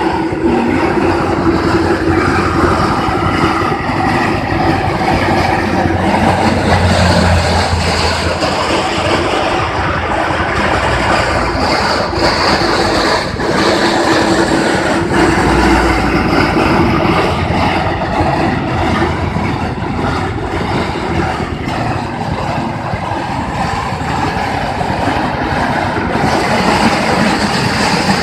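Powered rice threshing machine running steadily, a loud continuous mechanical noise with a low hum.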